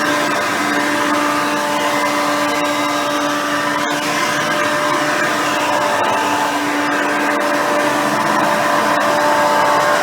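Hoover Elite 350 upright vacuum, 5-amp motor with a seven-blade fan, running steadily while vacuuming, with a constant motor whine over a dense rushing hiss.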